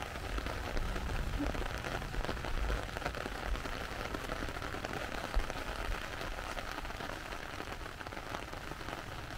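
Steady rain pattering on an umbrella held overhead, a dense even patter with a low rumble underneath.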